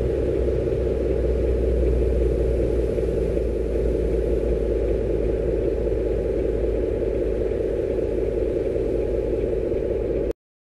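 An engine idling steadily with a deep hum, then cutting off suddenly just before the end.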